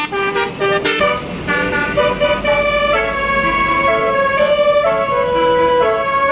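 A bus's basuri musical horn (telolet) playing a tune: short choppy notes at first, then a string of longer held notes stepping up and down in pitch.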